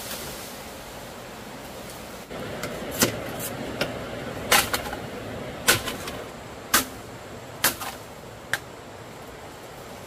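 A series of sharp knocks or blows, roughly one a second, the first about three seconds in and the last near the end.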